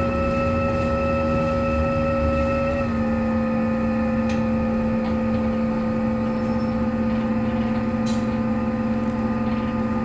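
Loud whirring from an Alexander Dennis Enviro 400MMC double-decker bus: a steady whine of several tones over a low rumble, which steps down slightly in pitch about three seconds in.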